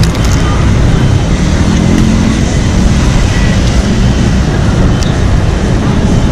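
Steady city street traffic noise, a loud low rumble of passing vehicles, with a few faint clicks.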